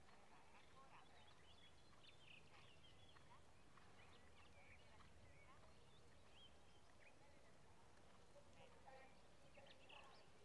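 Near silence, with faint scattered bird chirps over a low background hum.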